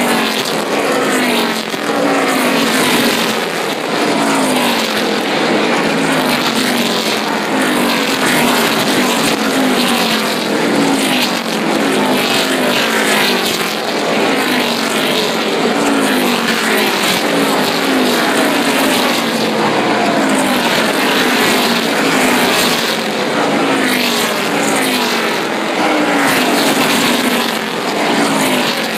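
NASCAR stock cars racing past in a continuous stream, their V8 engines at high revs. Each car's pitch drops as it goes by, one after another.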